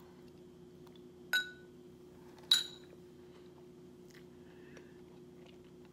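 A metal spoon clinks against a soup bowl twice, about a second and a half in and again about a second later, each with a short ring, the second the louder. A faint steady hum lies underneath.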